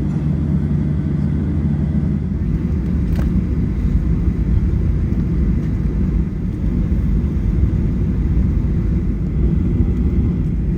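Boeing 737-800 heard from inside the passenger cabin: a steady low rumble of engines and airframe. A low hum fades about two seconds in, leaving a broader rumble, and there is a faint click about three seconds in.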